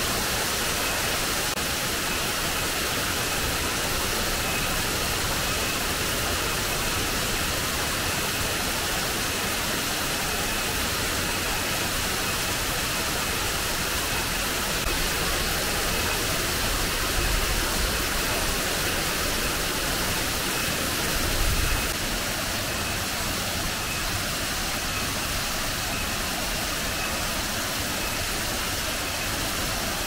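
Banyumala twin waterfall's falling water rushing steadily, with a couple of brief low rumbles around the middle.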